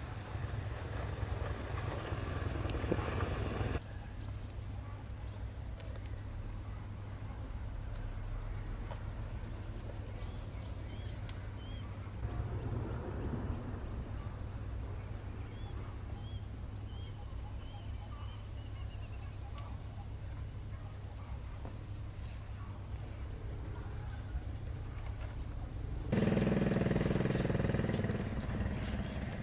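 Outdoor rural ambience: a steady low rumble under a thin, steady high insect tone, with a few faint bird chirps in the middle and a louder low sound coming in near the end.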